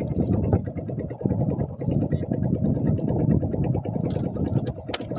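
Small fishing boat's engine running steadily, with a couple of sharp clicks near the end.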